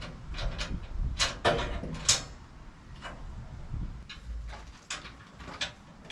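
Irregular sharp knocks and clatter, about eight of them, the loudest a little after the first and second seconds.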